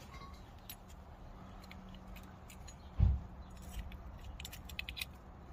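Light metallic clicks and taps as the dust cover is pushed onto the driveshaft nut at the centre of a van's front wheel hub, with one dull low thump about three seconds in.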